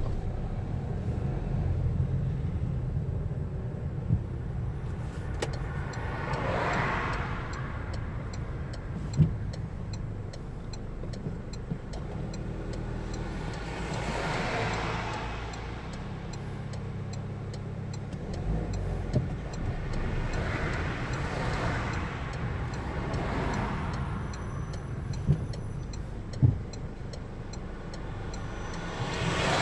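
A car driving on town roads: a steady low road and engine rumble, with other traffic swishing past four times, about every seven seconds. A light, regular ticking runs through the middle, and there are a few short knocks.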